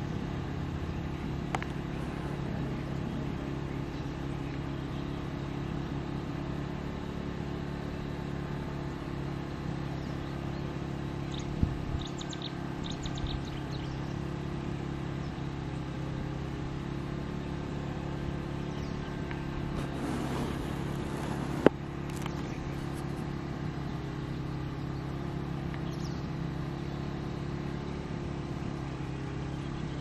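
A steady low hum from a running motor, with a few faint high chirps about twelve seconds in and a handful of sharp clicks, the loudest about twenty-two seconds in.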